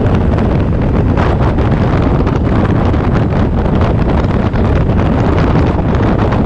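Steady, loud wind rush buffeting the microphone of a camera on a motorcycle riding at road speed, with the bike's engine and tyre noise blended in underneath.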